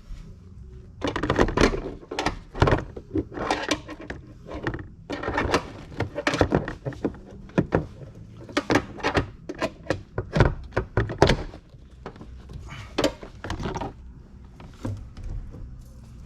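Plastic interior trim panel being pried and pulled loose from its retaining clips: a dense, irregular run of knocks, clatters and rattles of hard plastic, thinning out after about twelve seconds.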